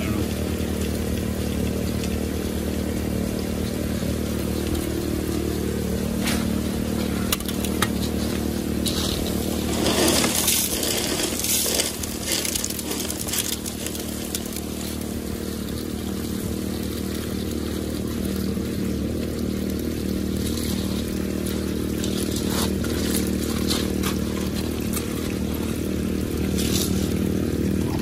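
Small gas engine of a water pump running steadily, feeding a highbanker sluice, with water rushing over the sluice mats. A spell of rattling and splashing comes around ten to thirteen seconds in.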